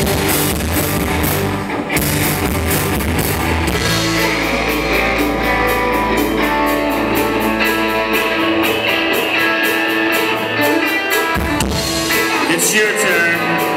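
A live rock band plays: electric bass, drum kit and two electric guitars. About eight seconds in the deep bass notes drop out, leaving the guitars and the cymbals.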